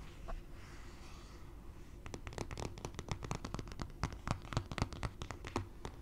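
Long fingernails tapping and scratching on a hard phone case. Quiet at first, then from about two seconds in a quick, uneven run of sharp nail clicks that stops just before the end.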